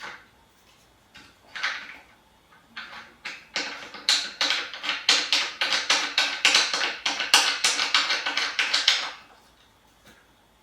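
The tension knob of a pneumatic stepper being screwed in by hand, clicking rapidly at about four or five clicks a second for several seconds, after a few scattered handling knocks.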